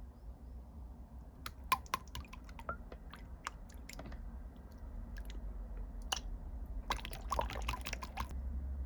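Clear slime being squeezed and pressed by hand, giving scattered sticky clicks and pops, with a dense run of pops near the end.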